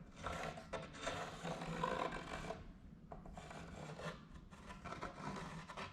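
Rubbing and scraping of template material being pressed and worked against the steel ear of an excavator ripper, in two uneven stretches of a couple of seconds each.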